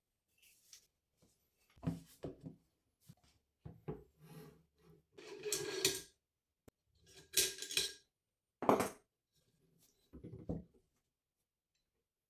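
Mossberg MMR Pro AR-15 rifle being handled for cleaning: scattered metal clicks, knocks and rubbing scrapes from parts and tools, with short pauses between, going quiet for the last second or so.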